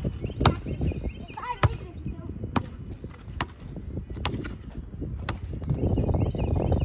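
A basketball being dribbled: six sharp bounces at a steady pace of about one a second.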